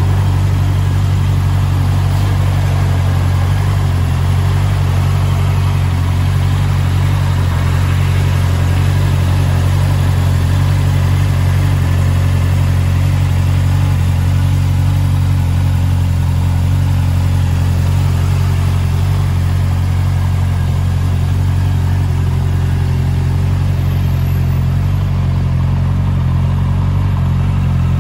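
Honda CBR650R's inline-four engine idling steadily, with no revving.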